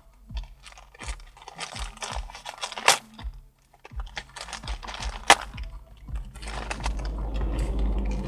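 A small parcel being opened by hand: crinkling and tearing of plastic packaging with a few sharp snaps, and a low handling rumble that builds in the second half.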